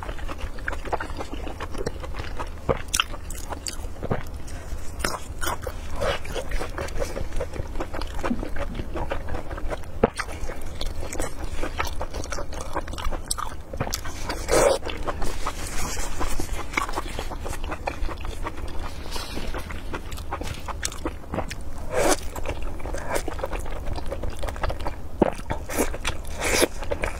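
Close-miked eating sounds of pig intestine being bitten and chewed, with many short wet clicks of the mouth and lips, a few louder bites, and a steady low hum underneath.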